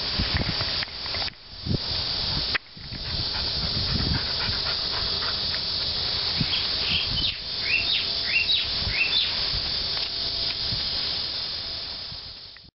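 Steady high hissing drone of cicadas in the trees, which breaks off briefly twice in the first few seconds. About halfway through, a bird gives a run of about six short chirps, each sliding downward.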